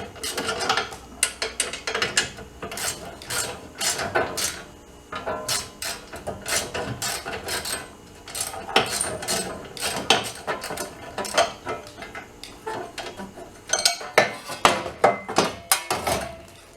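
Ratchet wrench clicking in irregular runs, with metal clinks and knocks, as a bolt is backed out.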